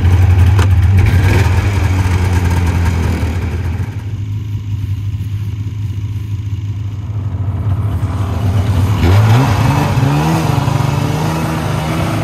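Snowmobile engine idling steadily just after starting; about nine seconds in it rises in pitch and settles at a slightly faster idle.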